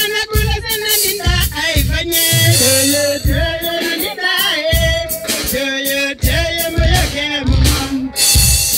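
Music with singing: held sung notes over a deep, recurring bass beat.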